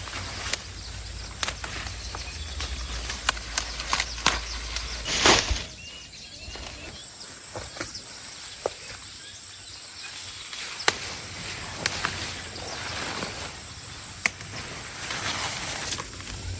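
Chickens moving about: scattered sharp taps and clicks with wing flapping, and a louder flurry about five seconds in. A low hum underneath stops at that point.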